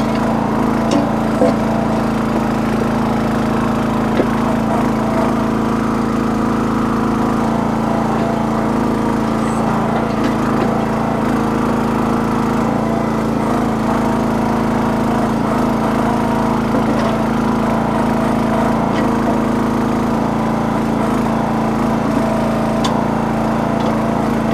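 Small petrol engine of a towable backhoe running steadily at working speed while the machine digs and levels ground, with a few faint clicks from the work.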